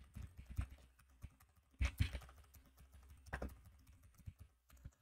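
Typing on a computer keyboard: a run of irregular key clicks, with a few louder keystrokes about two seconds in and again a little past three seconds.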